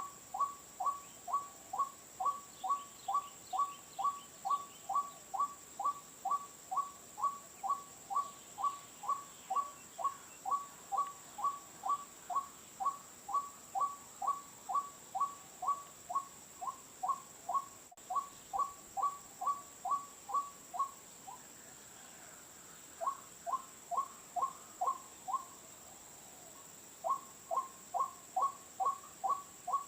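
White-breasted waterhen calling: a steady, monotonous run of two-note calls, about two a second, breaking off briefly twice near the end before resuming. A single sharp click sounds just past the middle.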